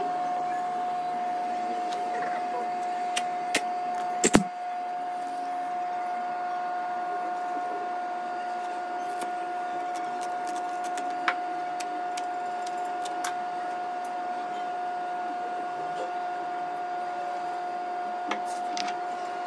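A steady electric motor hum at one even pitch, with sharp clicks and one loud knock about four seconds in, and a few more clicks later.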